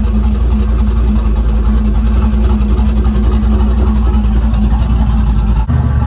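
LS V8 in a 1984 Chevy C10 idling steadily, with an abrupt change in the engine note near the end.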